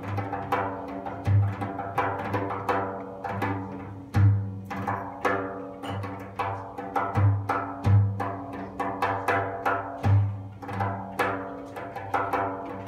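Live bellydance band music: a drum beating deep low strokes about once a second with quick sharp strokes between them, over steady held instrument tones.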